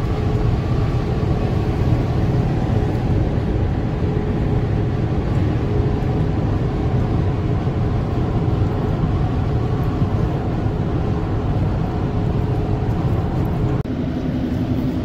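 A vehicle driving at highway speed: steady road and engine noise, strongest in the low end, with a faint steady whine over it. A brief dip near the end, after which a lower hum comes in.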